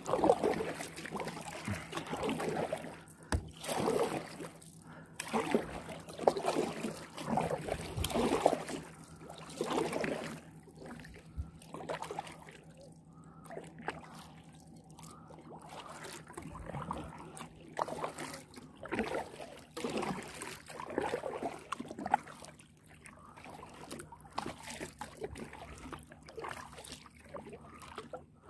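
Kayak paddle strokes: the blades dipping and pulling through calm shallow water, with splashing and dripping from the blades, repeated every second or two and pausing for a few seconds in the middle.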